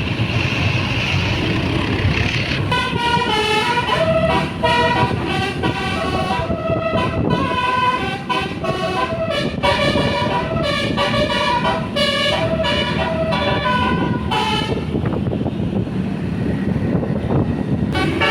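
A tour bus's telolet horn, a set of electric trumpet horns, playing a quick melody of changing notes for about twelve seconds over the rumble of the bus engine. The horn falls silent, leaving the engine, then starts another tune near the end.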